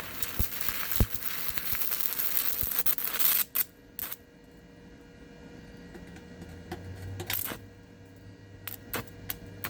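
Sefaspe 205DS multiprocess welder's arc crackling steadily through a weld pass for about three and a half seconds, then stopping. Two short bursts of arc follow, about four seconds in and again about seven and a half seconds in, as the arc is restruck, over a low steady hum from the welder's cooling fan.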